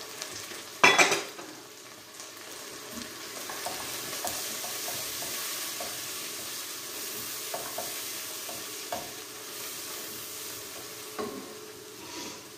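Vegetables sizzling as they fry in a pot, stirred with a wooden spoon that knocks and scrapes against the pot. A sudden loud hit about a second in.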